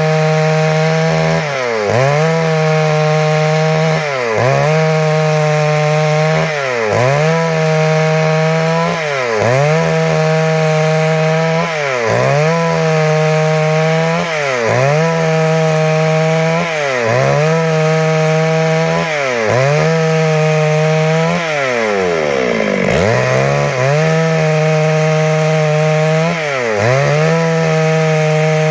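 Stihl MS 382 two-stroke chainsaw at high revs, sawing through wood. Its pitch dips briefly and climbs back about every two seconds. Around three-quarters of the way in it drops almost to idle before revving up again.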